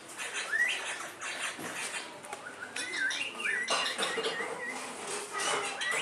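Rose-ringed parakeets chattering: short rising chirps and a run of wavering whistles in the middle, with scratchy clicks between the calls.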